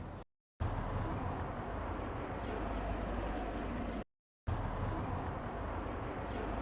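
Steady background ambience: a low rumble with a soft hiss, cut off twice by a sudden brief silence.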